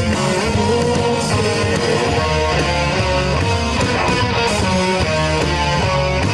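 Live rock band playing an instrumental passage: electric guitars over bass and drums, steady and loud.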